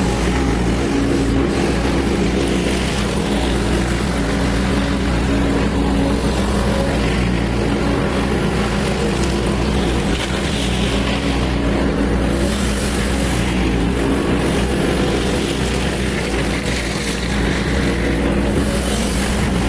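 Large diesel engine running steadily at an even pitch, with no breaks or clear impacts.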